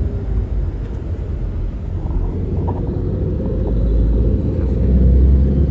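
Steady low rumble of a moving car's engine and tyres heard from inside the cabin, growing a little louder after about four seconds.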